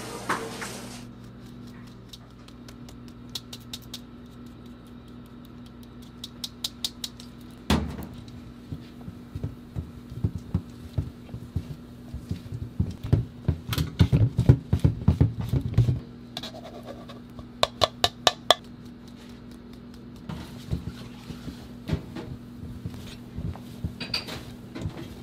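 A silicone spatula folding cake batter in a stainless steel mixing bowl, scraping and knocking against the metal in irregular runs, busiest in the middle. A steady low hum runs underneath.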